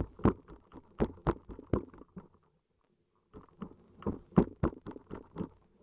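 Sharp underwater clicks and knocks from a diver's gloved hand scraping and tearing at weed on the rocky sea bottom. They come in two clusters with a quiet second between them.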